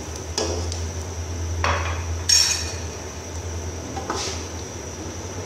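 Wooden spoon knocking and scraping against the side of a large aluminium pot while watery chicken curry is stirred: four separate clanks, the loudest about halfway through, over a steady low hum.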